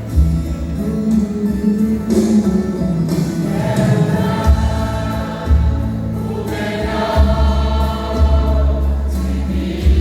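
A vocal group singing a gospel worship song in harmony over instrumental backing with a strong bass.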